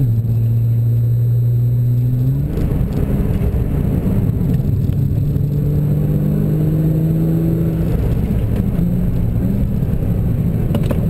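Nissan GT-R's twin-turbo V6 heard from inside the cabin under steady load as the car gains speed, over a low rumble of road noise. The engine note steps up about two seconds in, climbs slowly, then shifts and holds near the end.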